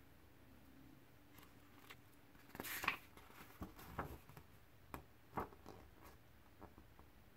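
Paper instruction booklet being opened and its pages handled: a short rustle a little under three seconds in, then a handful of light crinkles and ticks.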